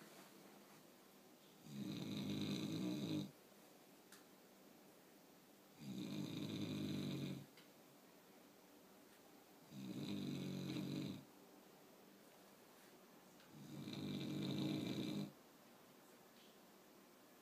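A sleeping person snoring: four long snores, one about every four seconds, each lasting about a second and a half.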